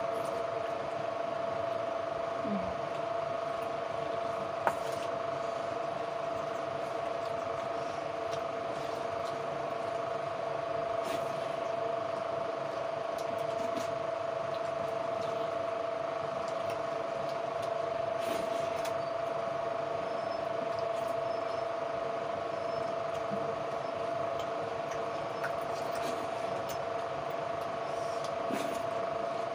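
A steady hum holding one constant mid-pitched tone, with a few faint clicks and one sharper tick about five seconds in.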